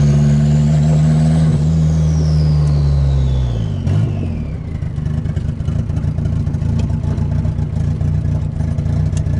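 Turbocharged, carbureted Volkswagen Gol engine heard from inside the cabin, running at steady high revs with a turbo whistle that climbs and then slides down. About three and a half seconds in the revs drop off and the engine settles into a rough, uneven low-rev rumble.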